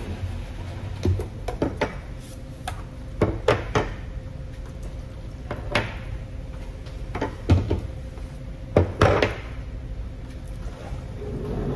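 Small ceramic side-dish bowls and plates being set down on a wooden table: a series of separate knocks and clinks, the loudest clustered late on, over a faint steady hum.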